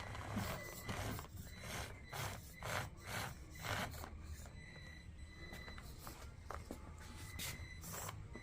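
Small RC crawler scraping over the obstacles of an indoor crawler course: short rough scrapes about two a second for the first few seconds, then two more near the end, over a faint steady high whine.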